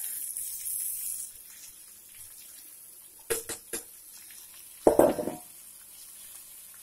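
Boiled cluster beans sizzling as they drop into hot mustard oil in a steel kadhai, the hiss loudest in the first second and then settling. Three sharp metal taps a little after three seconds, then a loud metallic clang about five seconds in as the steel bowl is knocked against the pan to empty it.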